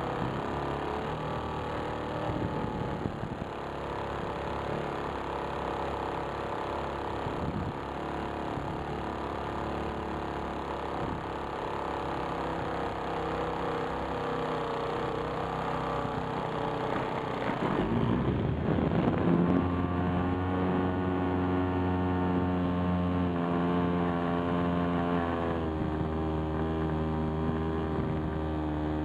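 RC model airplane's motor and propeller running, heard from the plane itself as a steady engine-like drone. A loud rushing burst comes about 18 seconds in. After it the motor note is louder and steadier, edging up slightly in pitch near the end.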